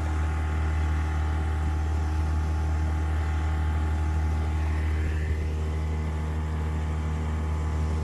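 Small outboard motor running steadily at cruising speed, driving a jon boat across the lake. It is a constant low hum with water wash from the hull.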